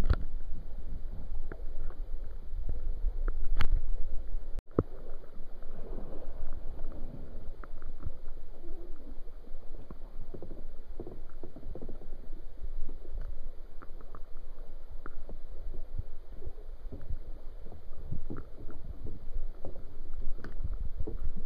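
Sea kayaks being put in at a grassy creek bank: irregular splashing and scraping of paddles and hulls in shallow water and reeds, over a low rumble. The sound drops out briefly about four and a half seconds in.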